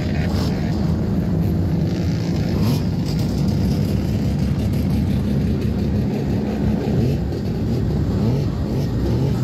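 Many Mazda rotary-engined cars running together at low speed as a procession rolls along, giving a steady, continuous mass of engine noise.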